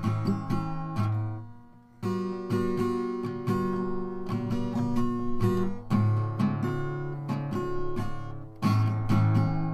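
Acoustic guitar strumming chords with no vocals, changing chord every few seconds, with a brief dip in level about a second and a half in.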